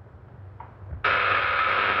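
Electrical buzzing from a boxed electrical apparatus, switching on suddenly about a second in and holding steady, a high-pitched tone with overtones.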